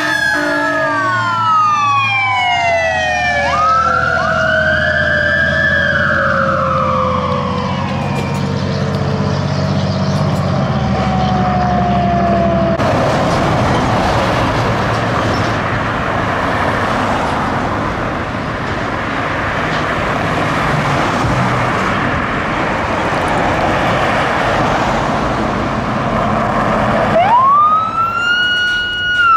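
A fire engine's sirens wail and slowly fall in pitch as it passes, over a low engine rumble. About halfway through this gives way to a steady wash of passing traffic and tyre noise. Near the end a battalion chief SUV's siren starts up with a quick rising wail and holds its top note.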